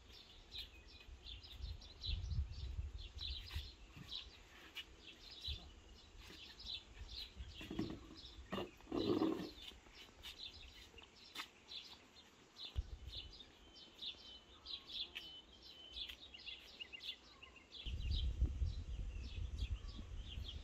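Small birds chirping repeatedly and steadily, with a low rumble coming and going. Two short, louder sounds stand out about eight and nine seconds in.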